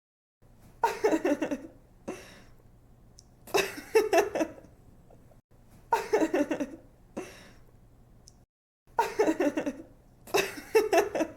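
A young woman laughing in short giggling bursts, about five of them a couple of seconds apart, over a faint steady low hum.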